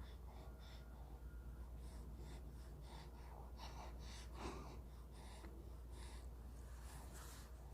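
Faint breathing and snuffling of a two-month-old baby, with short breathy noises and one slightly louder little grunt about four and a half seconds in.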